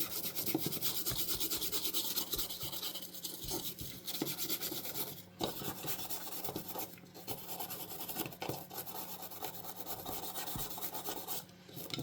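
Toothbrush bristles scrubbing a controller circuit board wet with isopropyl alcohol, in fast scratchy back-and-forth strokes with a few brief pauses.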